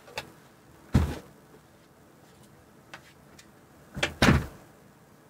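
A few separate thumps and knocks: a loud one about a second in, two light ticks near three seconds, and a loud double thump just after four seconds.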